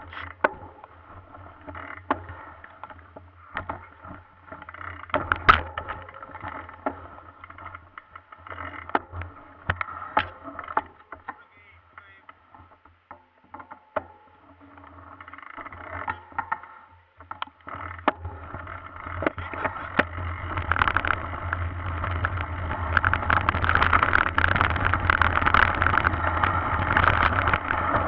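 Mountain bike rolling over rough dirt and rock, heard through a handlebar-mounted camera: irregular knocks and rattles of the bike and mount over bumps. About two-thirds of the way through, a louder steady rush of tyres on gravel and wind takes over as the riding speeds up.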